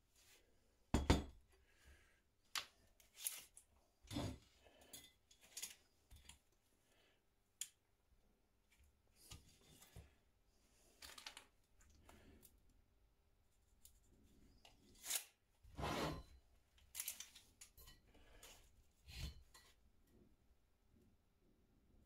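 Scattered light clicks, taps and short scrapes at irregular intervals, about a dozen in all, from hand work with tools and metal parts.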